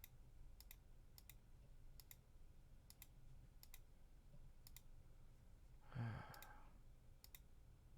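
Computer mouse clicking: about a dozen single sharp clicks at irregular gaps of roughly half a second to a second, over a quiet room. About six seconds in there is a brief low hum or sigh from a person.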